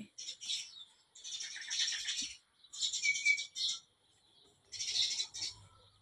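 Many sparrows chirping together in dense, overlapping bouts of high chatter, four bouts with short gaps between them, with one short clear whistled note about three seconds in.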